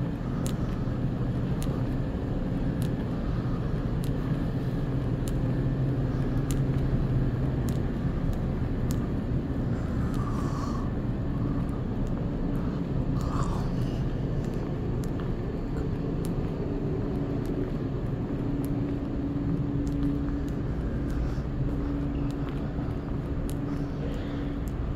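Footsteps on a hard tiled floor at a steady walking pace, about one and a half steps a second, over a steady low hum.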